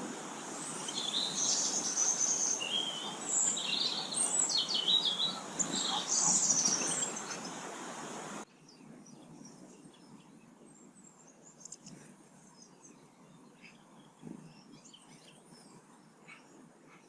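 Small garden birds chirping and calling in many short, overlapping calls. About halfway through, the sound cuts abruptly to a quieter stretch with fainter, scattered chirps.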